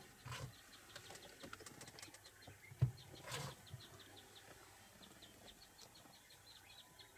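Quiet outdoor ambience in which a small bird calls in a rapid series of short, high chirps through the second half. A single sharp thump about three seconds in is the loudest sound.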